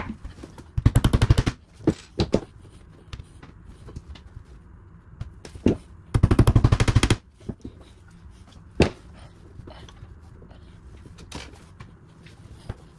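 Cordless power driver driving in screws in two short bursts of rapid, even rattling pulses, about a second in and about six seconds in, each lasting about a second; scattered single knocks and handling clicks come between them.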